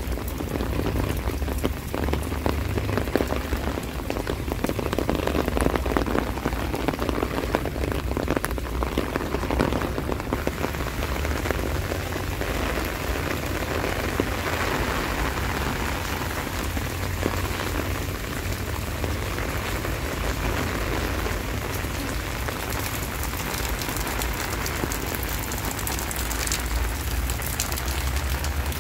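Steady rain falling, a constant hiss dotted with many small drop ticks.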